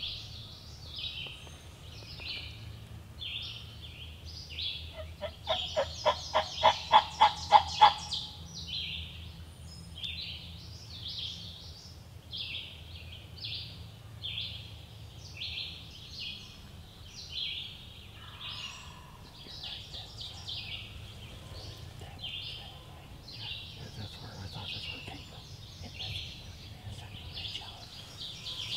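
A wild-turkey-style yelping run of about ten evenly spaced notes, growing louder, about five seconds in. Songbirds chirp steadily throughout.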